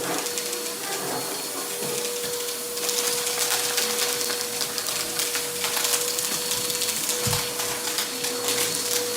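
Vacuum cleaner running: a steady motor whine over the hiss of rushing air, which grows louder about three seconds in. A brief low thump about seven seconds in.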